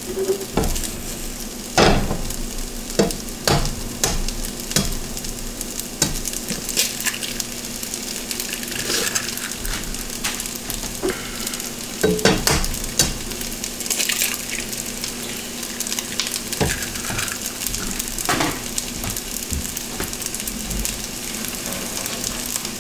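Fried rice sizzling steadily in a hot wok, with several sharp knocks scattered through as eggs are cracked against the pan and dropped onto the rice.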